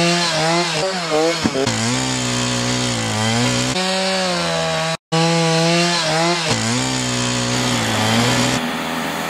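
Petrol chainsaw cutting blocks out of packed snow, its engine note rising and sagging as the chain bites into the snow and frees again. The sound breaks off for an instant about five seconds in.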